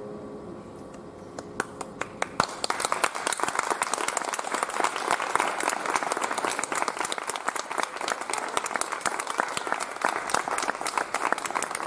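Audience applause at the end of a song: a few scattered claps, then steady clapping from about two seconds in.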